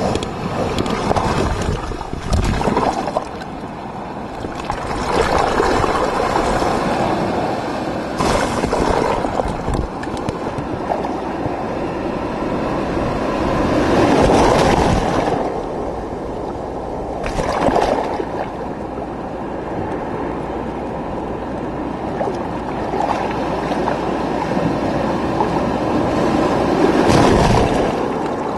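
Rough ocean surf washing over and around a camera at the waterline: continuous sloshing water, with several louder surges as waves break over it.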